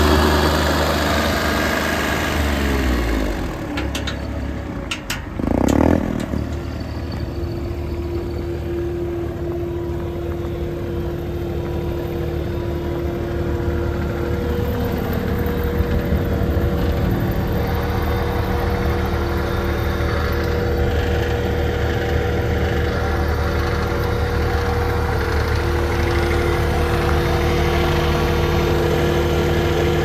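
Bobcat S70 skid steer's three-cylinder Kubota diesel running steadily at idle, its pitch falling over the first few seconds as the revs drop. A few sharp clicks and a brief thump come about five seconds in.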